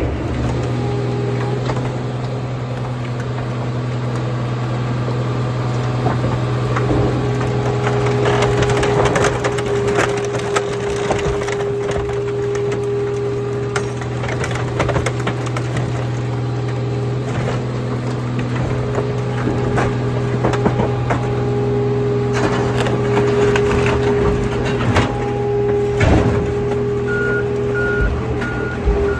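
Hydraulic car crusher at work: a steady engine hum and a hydraulic whine that comes and goes, while the crushing plate presses down on stacked car bodies and the metal cracks and crunches. Near the end a reversing alarm beeps.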